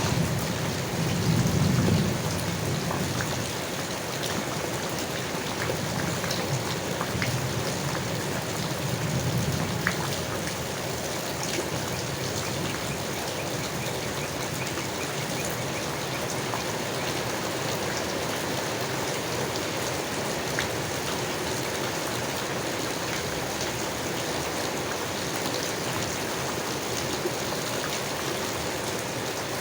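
Steady rain falling on leaves, with individual drops ticking. A low rumble of distant thunder dies away over the first ten seconds or so.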